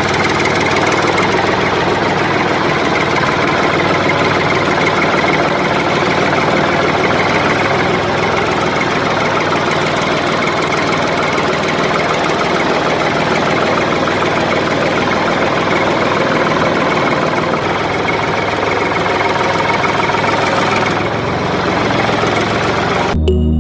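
A small engine running steadily with a dense, clattering noise. It cuts off abruptly near the end.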